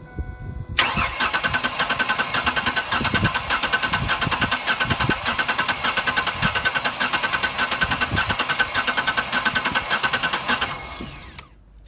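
Ford six-cylinder engine cranking on the starter without firing, held in clear-flood mode. It starts about a second in and stops near the end. The cranking is uneven because one cylinder has low compression: the starter turns faster each time that cylinder comes up on its compression stroke.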